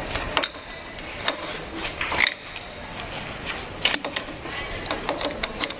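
Irregular metallic clicks and clinks of tools and parts being handled while a metal lathe is set up again for the next cut, about eight or ten sharp knocks scattered over a steady background hum.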